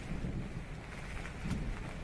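Rain falling on a tent with a low rumble of thunder underneath. A few sharper drop hits come about one and a half seconds in.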